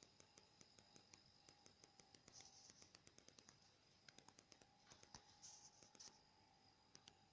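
Near silence, with faint irregular clicks and a few brief scratching sounds over a faint steady whine.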